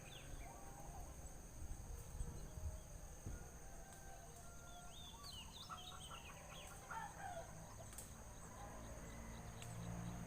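Birds calling: a quick run of high chirps about halfway through, with some lower calls, over a steady high-pitched whine.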